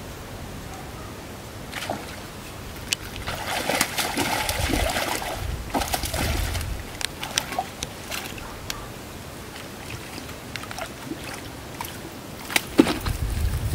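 Splashing and sloshing of a hooked fish thrashing at the surface of a small weedy pond, strongest for a few seconds from about three seconds in. Near the end come a few sharp slaps and a thump as the fish is hauled out onto the bank.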